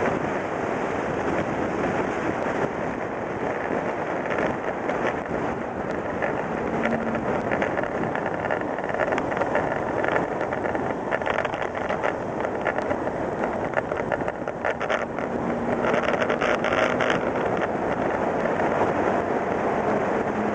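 Car on the move: steady tyre and wind noise, with the engine faintly beneath. The noise turns rougher and crackly through the middle stretch, and a faint low engine note shows briefly twice.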